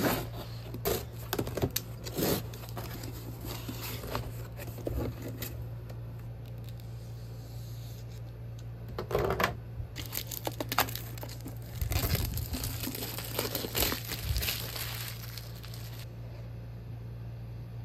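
Packing tape and cardboard slit and torn open with a small cutter, then plastic shrink-wrap crinkling and tearing as it is cut and peeled off a toy box, in irregular ripping bursts. A steady low hum runs underneath.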